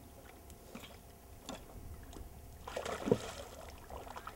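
A hooked trout splashing at the water's surface while being played on a fly rod. There are small splashes early on and a louder splash about three seconds in.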